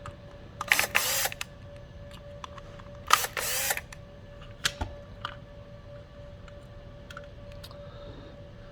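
Small electric screwdriver with a hex bit run in two short whirring bursts, backing out the two screws that hold the encoder wheel on a GDX-Cart, followed by light clicks of the screws and small parts being handled.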